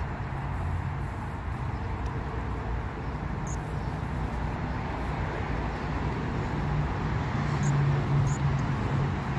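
Steady low rumble of road traffic on the bridge overhead, swelling about eight seconds in as a heavier vehicle passes.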